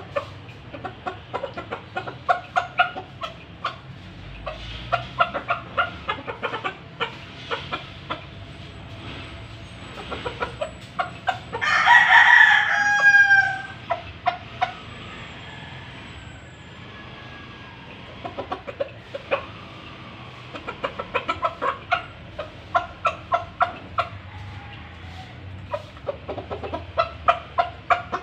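Rooster clucking in runs of quick, short notes, with one loud crow about twelve seconds in that falls in pitch at its end.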